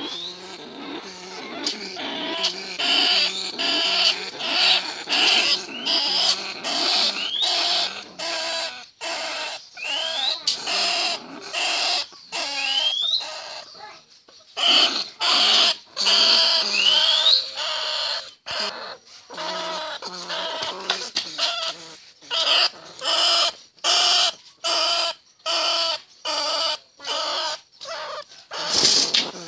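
Bandicoot rats and field rats squealing and chattering in a long series of short calls, one or two a second, several of them rising squeaks, with a brief pause about halfway.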